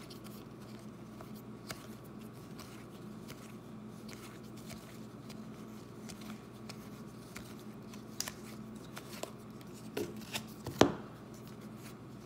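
A stack of Topps baseball trading cards being flipped through by hand, card after card slid off the front and tucked behind: soft ticks and slides of card stock, with a few sharper snaps near the end, over a faint steady hum.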